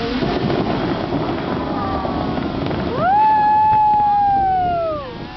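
Rushing spray of the Bellagio fountain jets, with the show's music playing over it. About three seconds in, one long note swoops up, holds for about two seconds, then sinks and stops.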